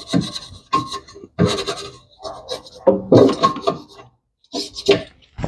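Irregular rasping, rubbing strokes, several in a row with short gaps between them.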